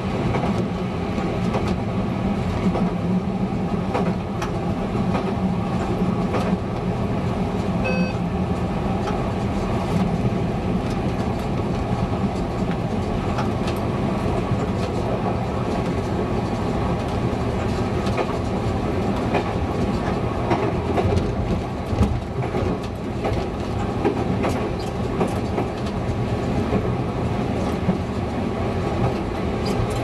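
Czech Railways class 854 diesel railcar running along the line, heard from the driver's cab: a steady diesel engine hum with wheels clicking over rail joints. A short beep sounds about eight seconds in.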